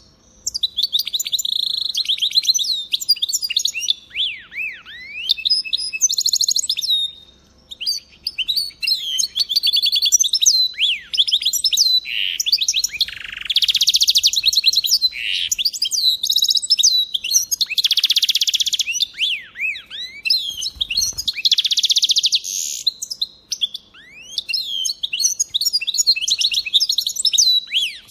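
Goldfinch hybrid (Stieglitz-Mischling) singing a long, almost unbroken song of twittering notes and quick slurred whistles, broken by several fast buzzy trills and a few brief pauses.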